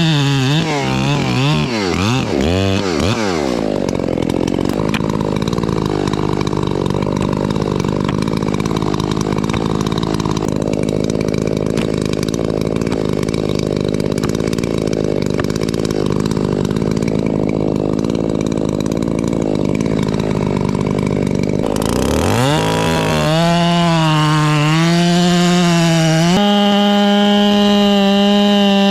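Gas chainsaw blipping its throttle, then cutting under load into a rotten fir trunk for most of the stretch while the face notch is opened up. Near the end it runs up to high, steady revs, stepping higher once.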